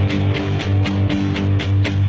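Background music: guitar over a bass line with a steady beat.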